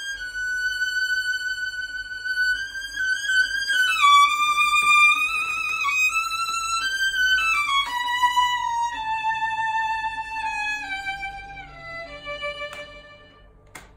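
Golden-period Stradivari violin playing a slow solo melody of long bowed notes with vibrato, the line stepping down in pitch through the second half and fading near the end.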